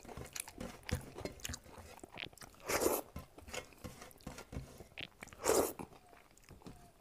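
Close-miked eating: chewing with wet mouth clicks and smacks, and fingers mixing rice and dal on a metal plate. Two louder, longer noisy sounds come about three and five and a half seconds in.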